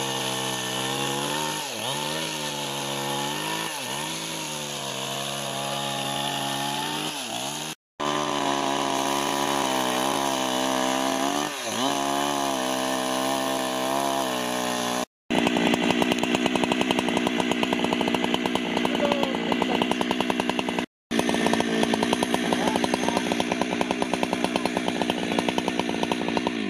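Petrol chainsaw ripping lengthwise through a log to cut it into planks. The engine note dips under load and recovers every couple of seconds. The sound breaks off abruptly three times between cuts.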